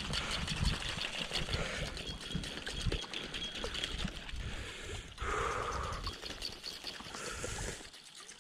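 Wind buffeting the microphone over small waves lapping against a rocky shoreline, with a brief louder rush of noise about five seconds in.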